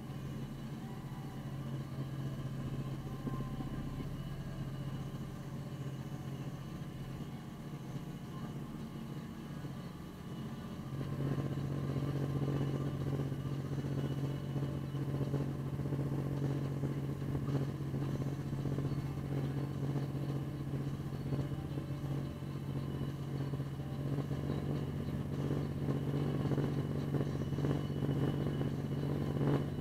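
Snowplow vehicle's engine running, heard from inside the cab as a steady low drone. It gets louder about eleven seconds in and stays that way.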